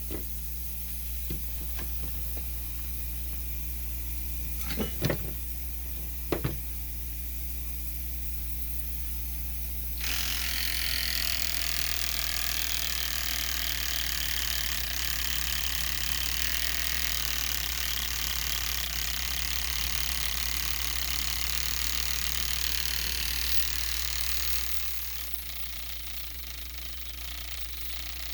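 A desoldering tool working on the relay's solder joints on a circuit board: a couple of sharp clicks, then about ten seconds in a steady whirring hiss starts and runs for some fifteen seconds before stopping. A low electrical hum lies under it throughout.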